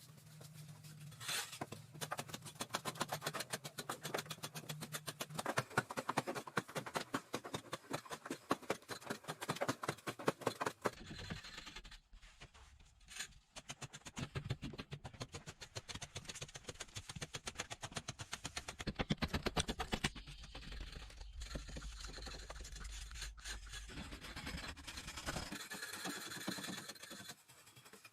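Rhythmic scraping, many quick even strokes a second, like a tool or hand working a rough surface, with a steady low rumble underneath through the middle of the stretch.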